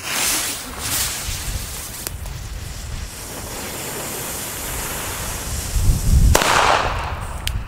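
Funke Titanschlag Blau F2 firecracker: its blue pre-burner hisses for several seconds, then the titanium flash charge goes off with one very loud bang about six seconds in.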